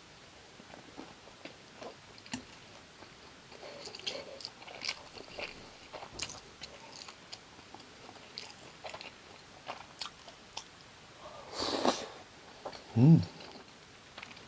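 Close-miked chewing and biting of fried gimmari coated in tteokbokki sauce: small wet, crunchy clicks throughout. About twelve seconds in there is a louder rush of breath, followed by a short hummed voice sound.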